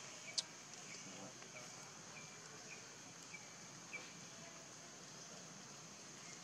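Faint outdoor ambience: a steady high-pitched insect drone with short high chirps repeating about every half second, and one sharp click about half a second in.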